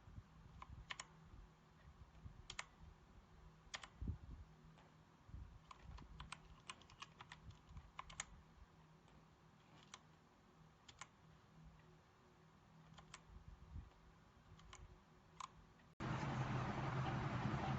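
Keystrokes on a Redragon K617 FIZZ 60% mechanical keyboard: scattered, irregular clicks, sometimes several in quick succession. Near the end a louder steady noise with a low hum suddenly takes over.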